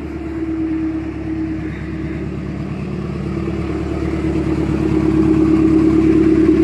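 A car engine running with a steady drone, growing gradually louder toward the end.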